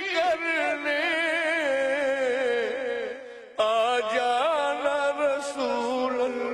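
A solo voice sings an Urdu naat (devotional song in praise of the Prophet), drawing out long ornamented notes with vibrato. The singing fades and then cuts back in abruptly about three and a half seconds in.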